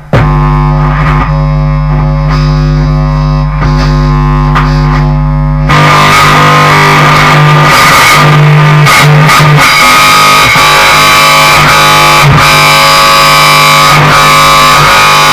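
Bass guitar through a distortion pedal and a small guitar amp, playing a loud, sustained distorted drone at a steady pitch. About six seconds in it turns abruptly into a harsher, denser wall of noise.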